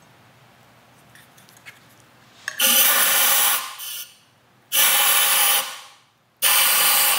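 Compressed-air blow gun hissing in three blasts of a second or more each, the first about two and a half seconds in. The air is blown into a slot in a motorcycle handlebar to push a string through the tube.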